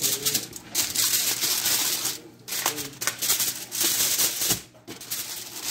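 Aluminium foil crinkling as it is handled and pulled back from a foil pan, in several rustling stretches with short breaks.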